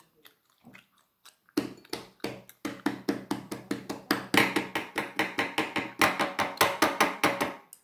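Metal chopsticks tapping quickly and repeatedly on a wooden table, about five knocks a second. The run starts about one and a half seconds in and grows louder from about four seconds in.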